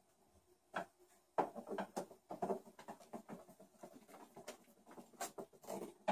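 Hand screwdriver tightening screws into the plastic housing of a Mosquito Magnet, with irregular small clicks and scrapes that are quiet for the first second and a half and then come thick and fast.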